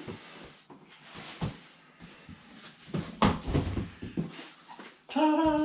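Cardboard boxes scraping and rustling as an inner box is jiggled and slid out of a heavy outer carton, with a cluster of heavier knocks and scraping about three seconds in. A voice calls out "ta-da" near the end.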